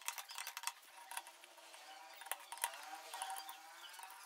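Faint, scattered light metallic clicks and ticks from a hand socket wrench working the clutch centre nut of a motorcycle engine, steel tool against nut and clutch parts.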